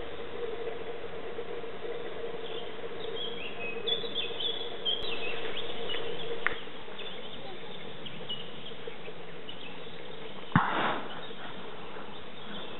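Woodland outdoor ambience with a steady hiss and a faint hum. Small birds chirp in short high phrases a few seconds in, and one short loud sound comes near the end.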